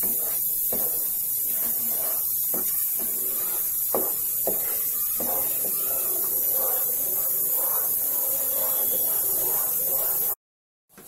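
Spatula stirring and scraping a thick paste of milk powder, milk and ghee around a kadhai, with scattered scrapes and knocks against the pan, over a steady high hiss. The sound cuts out briefly near the end.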